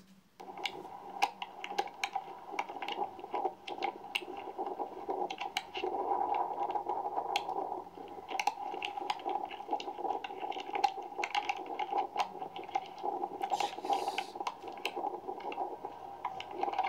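Sound of tornado footage playing through a laptop speaker: a steady rushing noise with many sharp crackling clicks running through it.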